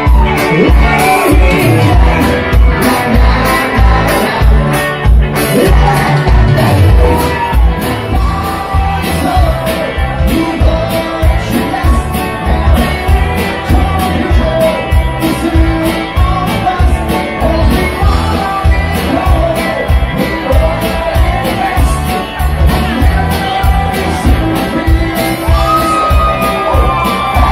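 Live cover band playing loud amplified dance music with a steady beat and a singer, with crowd shouts over it.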